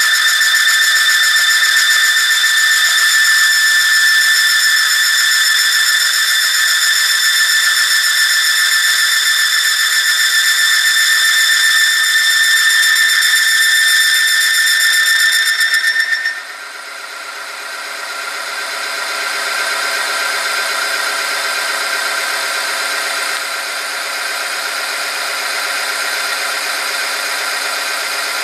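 Oil-film friction test machine squealing as its spinning steel ring rubs against the loaded test sample in 100 °C engine oil, a loud steady high whistle with overtones. About 16 seconds in the squeal drops sharply in level and turns into a lower-pitched whine, with more weights loading the lever.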